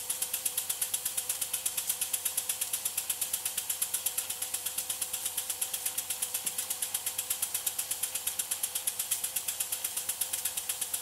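Small model steam engine running steadily, belt-driving a small DC dynamo that is charging a phone: an even, rapid clatter of beats, about eight a second, with a thin steady tone underneath.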